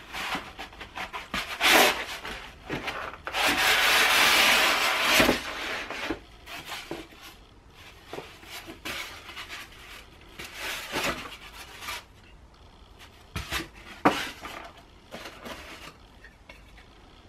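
Unpacking a cardboard mailing package: cardboard and foam rubbing and scraping, loudest in a two-second rub about three seconds in as the contents slide out. Light knocks and rustles follow as the foam and a wooden piece are handled.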